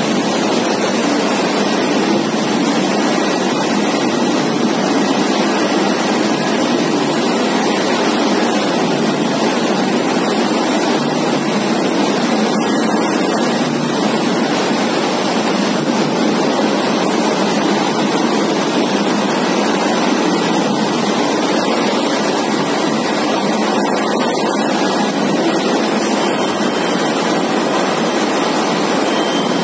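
Steady, dense noise of an automatic potato chips production line running: motors, drums and conveyors going together at a constant level, with a thin high whine.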